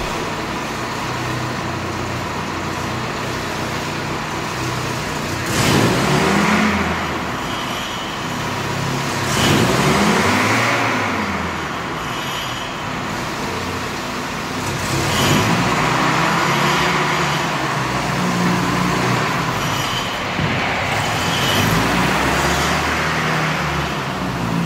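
1949 Willys wagon's engine idling, revved up and back down several times.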